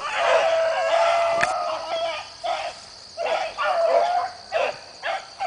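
Beagle baying: one long drawn-out call of about two seconds, then a string of shorter calls with short gaps between them. This is the voice of a beagle running a scent trail.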